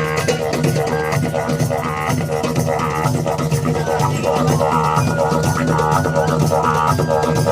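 Music with a deep, steady drone under a repeating rhythm.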